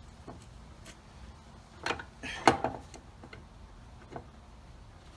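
Two sharp metal knocks about half a second apart as a slide-hammer dent puller's weight strikes its stop, pulling on a stud welded to a car body panel, with a few light clicks around them.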